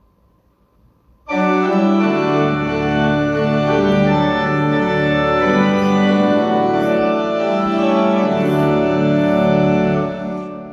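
Organ playing the introduction to a hymn: held chords that start about a second in, move from chord to chord, and die away near the end, just before the congregation comes in.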